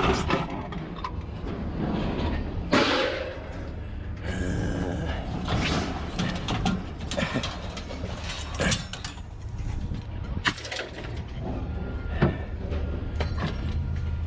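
Scattered knocks, clanks and rattles of scrap metal being handled, over a steady low hum.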